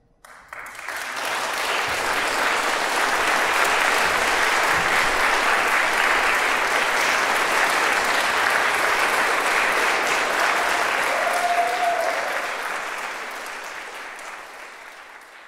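Audience applauding: the clapping breaks out about half a second in, swells quickly to a steady, dense level, and fades out over the last few seconds.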